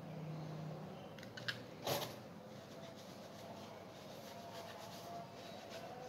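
Small objects handled at close range over a faint steady hum: a sharp click about one and a half seconds in, then a short, louder rustle or scrape just before two seconds in.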